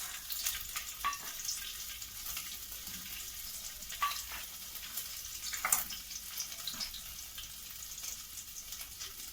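Ginger sizzling in hot desi ghee in a pot as it is stirred: a steady crackling hiss with a few sharp clicks, the loudest about halfway through.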